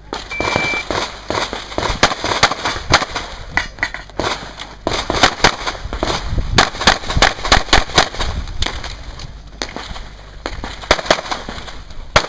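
A shot timer gives a short beep about half a second in, then a 9mm CZ 75 SP-01 Shadow pistol fires a long string of rapid shots in quick bursts, with two short lulls between bursts as the shooter moves between positions.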